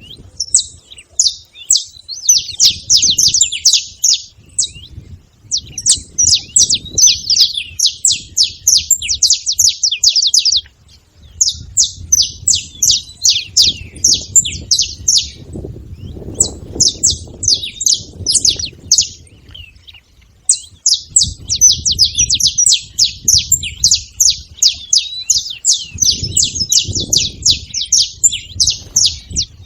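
Saffron finches chirping together: bouts of fast, sharp chirps lasting several seconds, broken by short pauses, over a faint low rumble.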